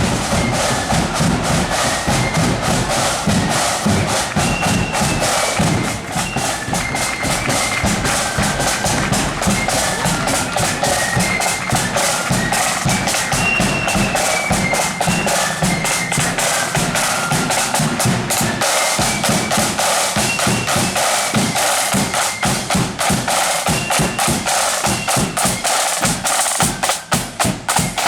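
Accordion band playing: piano accordions carrying the tune over busy snare drumming and bass drum beats.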